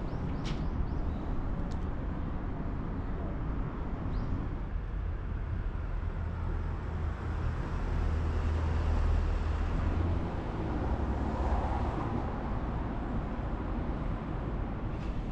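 Outdoor street ambience: a steady low rumble of distant traffic, with a few faint clicks about half a second in.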